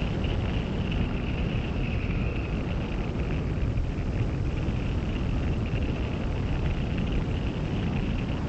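Steady rush of wind over a hang glider's wing-mounted camera in flight, a low rumble under an even higher hiss.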